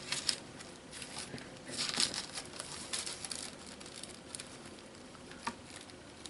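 Wax paper and journal pages rustling and crinkling as they are lifted and folded over, loudest about two seconds in, with a short sharp tap near the end.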